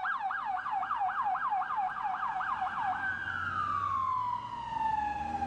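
Toy ambulance's electronic siren: a fast warbling yelp, about five pitch sweeps a second, that about three seconds in changes to a single long wail falling slowly in pitch.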